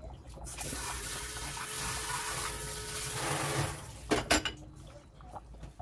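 Water running for about three seconds and stopping abruptly, followed by a few sharp knocks.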